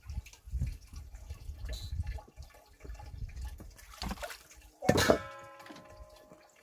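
Water sloshing and dripping amid handling noise, then a sharp clink of a vessel about five seconds in that rings on for a second or so as it fades.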